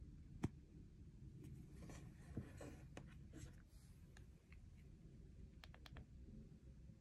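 Faint handling noise of a smartphone being picked up by hand: a sharp tap about half a second in, light rubbing and scraping over the next couple of seconds, and a few soft clicks near the end.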